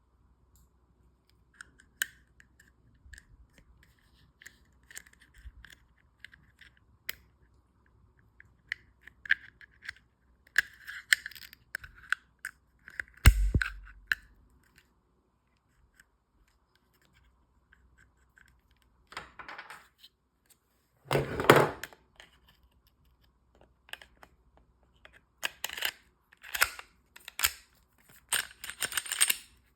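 Handling noises from a pistol and its magazines: scattered small clicks and scrapes, a heavy thump about 13 seconds in, and two longer scraping rustles around 19 and 21 seconds.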